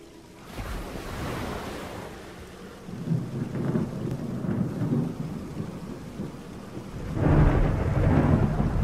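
Thunder rumbling over rain. The rolls swell about half a second in, again around three seconds in, and loudest from about seven seconds on.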